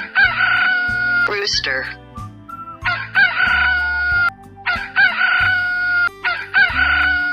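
Rooster crowing cock-a-doodle-doo four times, each crow ending in a long held note.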